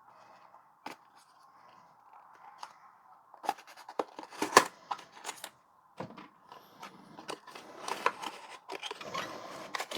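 A charger's retail box being opened by hand: scattered clicks and scrapes of cardboard and packaging, turning into denser rustling near the end.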